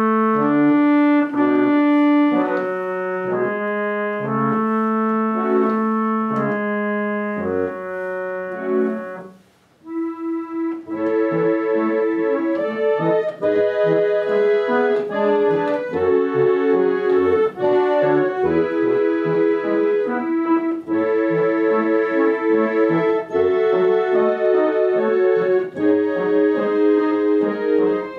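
Mustel harmonium, an 1877 Paris-built reed organ, playing slow sustained chords on its 8' bass rank and treble Voix Céleste. A phrase ends with a brief pause about ten seconds in. Then a new phrase starts, with a moving melody over held chords.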